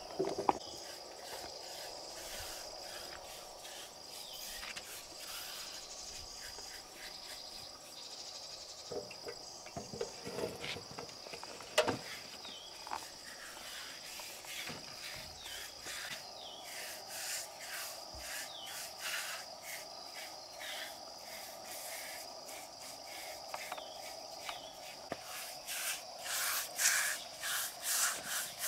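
An insect chirps steadily in a high-pitched pulse, about two pulses a second, over outdoor background noise. A few sharp knocks sound, and scratchy rubbing strokes build up near the end.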